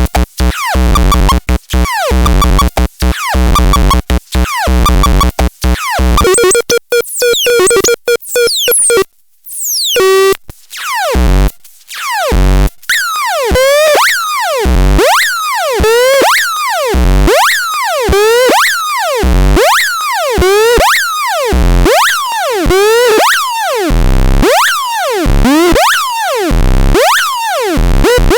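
Synthesized electronic sounds: fast pulsing tones at first, a brief dropout about a third of the way in, then a repeating pattern of swooping pitch sweeps, each with a low thump, about once a second.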